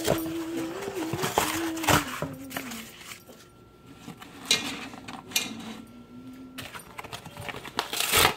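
Hands handling corrugated cardboard and setting coffee pods into a metal tin: rustling, scraping and several sharp clicks and clinks, the loudest near the end. A thin pitched whine sounds underneath through the first part and again, lower, in the middle.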